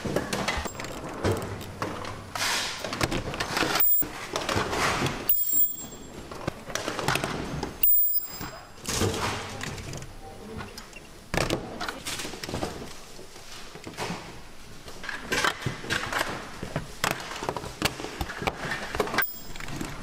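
Work sounds from a power strip production line: a steady run of clicks, knocks and clatter from parts and machinery being handled, broken by several abrupt breaks.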